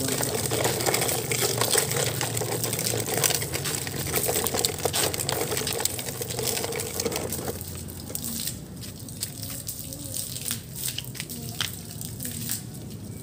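Running water splashing while plastic toy trucks are washed. About seven and a half seconds in the flow eases off, leaving drips and small knocks.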